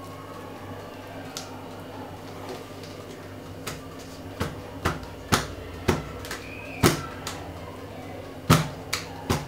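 A filled metal springform cake tin knocked down again and again on a cloth-covered tiled counter, to settle the batter before baking. The knocks start a few seconds in and come about every half second, the loudest near the end.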